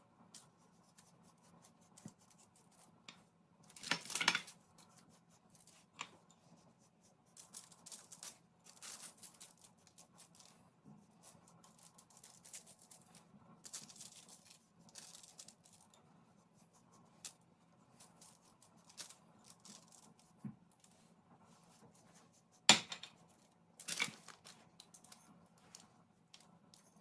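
Intermittent scraping and rustling from cake-making work with kitchen things, with a few sharp knocks: one about four seconds in and two close together near the end.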